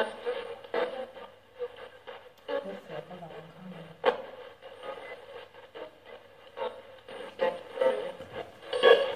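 Radio-like sound: choppy, broken-up bursts of static and voice fragments with a thin, band-limited tone, and a sharp click about four seconds in.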